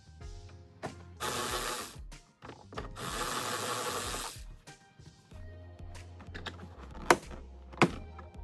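Mechanical work on the SUV's interior trim: two bursts of harsh mechanical noise, the second longer, then two sharp clicks near the end, over background music.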